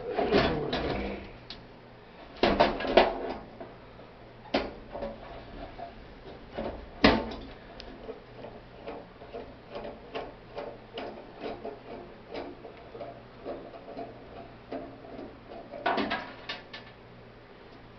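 Metal clanks and clatter of a wrench working the nuts that hold the burner assembly in a Coleman 413-H camp stove. Through the middle there is a run of light, even ticks about two a second, and another clatter near the end.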